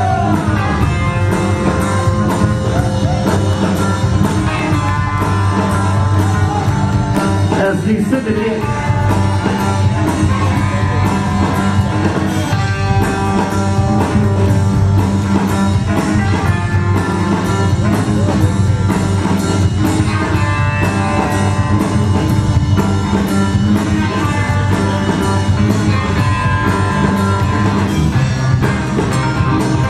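Loud music with a steady drum beat, playing without a break.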